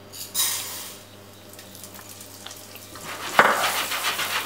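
Arborio rice poured into hot olive oil in a stainless steel saucepan, hissing as the grains hit the oil and fading over about a second. About three seconds in, the rice is stirred with a spatula, a sharper scrape followed by frying and stirring noise.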